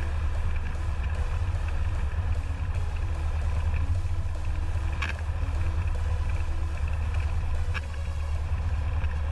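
Cessna 172 single-engine piston aircraft engine running steadily at low power during the back taxi, a constant deep drone. Two brief clicks sound about five seconds in and again near eight seconds.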